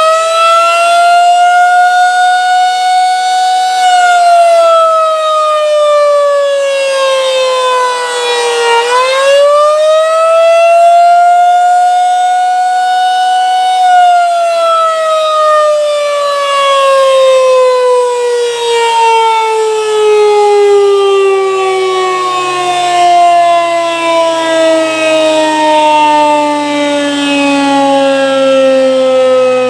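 Federal Signal 2001-SRN outdoor warning siren sounding loudly, its pitch rising, holding and falling twice in cycles of about nine seconds. About 14 seconds in it begins a long, slow wind-down, the pitch sliding steadily lower as the rotor spins down.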